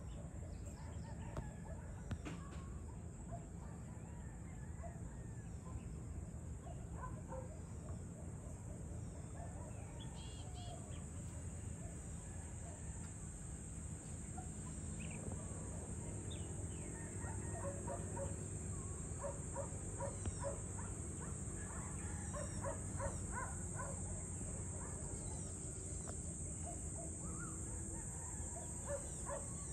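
Evening outdoor ambience: birds calling with scattered short chirps, and a run of quick repeated calls in the second half. Underneath runs a steady high-pitched drone and a low steady rumble.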